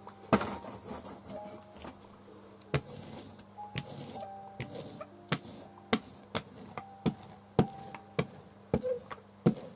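Small hand ink roller worked over an inked end-grain wood engraving block: irregular sharp clicks and taps as the roller is set down and rolled, with a few short bursts of high hiss.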